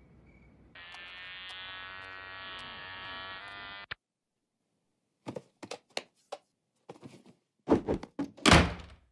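Electric hair clipper buzzing steadily for about three seconds, then cutting off. After a pause comes a string of short thuds and knocks, the loudest two near the end.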